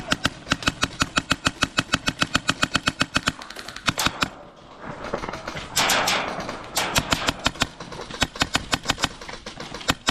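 Airsoft guns firing in rapid strings of sharp cracks, about seven or eight shots a second at first. After a short pause there is a brief rush of noise, then more quick strings that grow sparser near the end.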